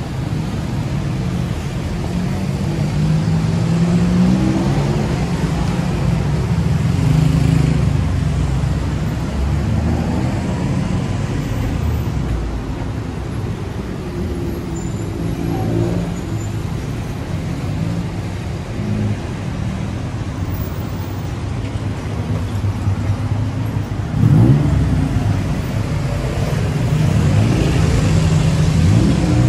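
Road traffic on a city street: motor vehicle engines running continuously. Engines accelerate with a rising pitch about four-fifths of the way through and again near the end.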